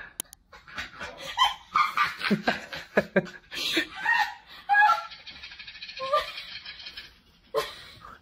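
Laughter in many short bursts of giggling and chuckling, with some speech mixed in.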